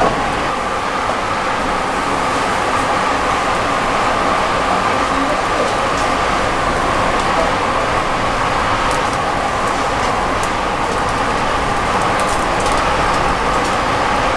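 Straw fire burning hard under skewered skipjack tuna being seared: a steady rushing roar of flame with scattered crackles, more of them in the second half.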